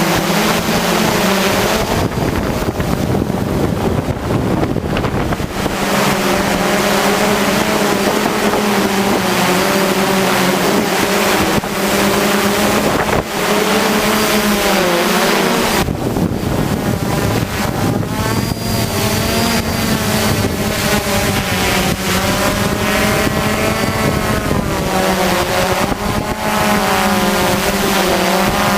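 Hexacopter's electric motors and propellers humming steadily, their pitch wavering up and down as the motor speeds change. Wind rushes over the microphone throughout.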